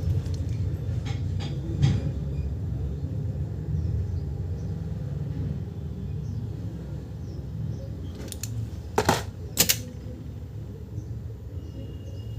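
Steady low machine hum with a few sharp clicks, the loudest two close together about nine seconds in.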